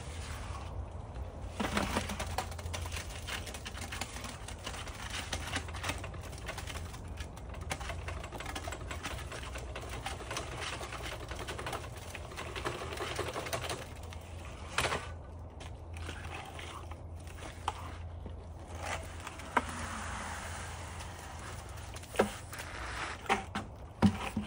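A hand tool scraping and tapping through wet concrete and stones, in an irregular run of scrapes and small clicks, with a few sharper knocks in the second half.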